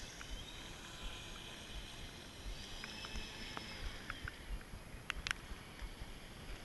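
2Fast2Fun Bullet RC speedboat's brushless electric motor, on 3S Li-Po, whining faintly as the boat runs across the water; its pitch rises and falls with the throttle. A couple of sharp clicks come about five seconds in.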